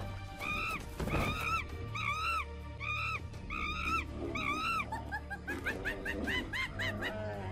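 Background music with a repeated animal-like call that rises and falls, about two a second, followed by a faster run of shorter calls.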